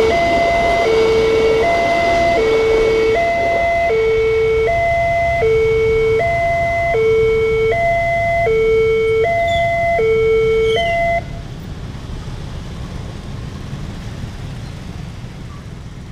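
Railway level-crossing warning siren from a horn loudspeaker, sounding a two-tone alarm that alternates between a low and a high note about every 0.8 s; this is the signal that the crossing is closed for a train. It cuts off suddenly about 11 s in, leaving the steady engine noise of a crowd of motorcycles moving over the crossing.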